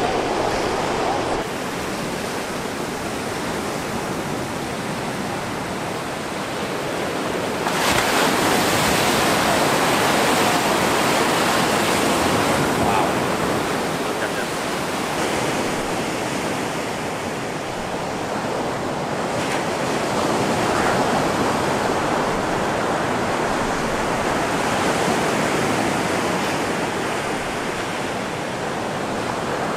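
Ocean surf: a continuous rush of waves breaking and washing in, swelling louder for several seconds about a quarter of the way in and again twice later as bigger sets break.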